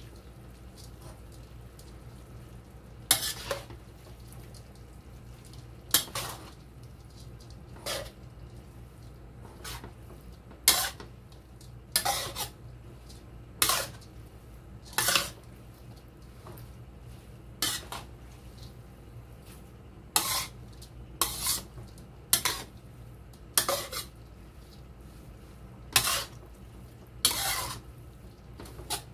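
Spatula knocking and scraping against a nonstick wok while tossing a rice vermicelli stir-fry: an irregular sharp clatter every second or two, over a steady low hum.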